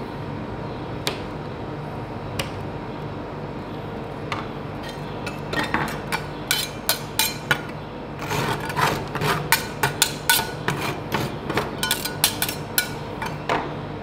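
Metal spatula chopping chocolate pieces on the cold metal plate of a rolled-ice-cream stall: irregular sharp clacks of metal on metal. The clacks are sparse for the first few seconds, then come quick and dense until near the end, over a steady low hum.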